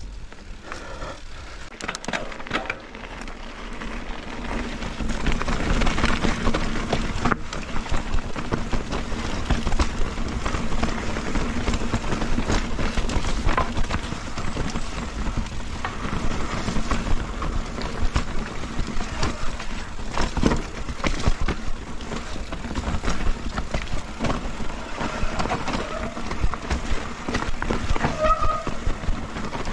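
Mountain bike ridden over a muddy trail full of wet roots, recorded on a GoPro camera on the bike or rider. There is a steady rushing noise from the tyres and the air, broken by many sharp knocks and rattles as the bike hits roots.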